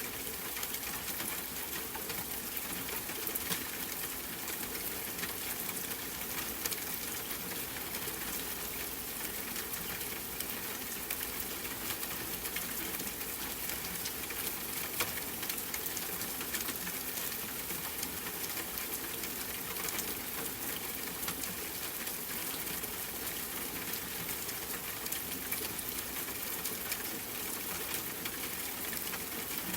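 Steady rain falling: an even hiss made of many small, quick drop taps, unchanging throughout.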